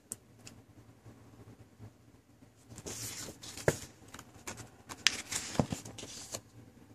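Glossy magazine pages being handled and turned by hand: paper rustling with a few sharp clicks, starting about three seconds in.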